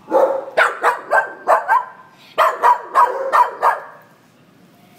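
Small dog barking in two quick runs of about five barks each, stopping about four seconds in.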